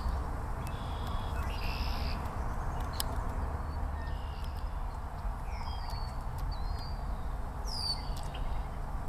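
Scattered brief high bird chirps and whistles, a few short down-slurred notes and one louder sweeping note near the end, over a steady low rumble.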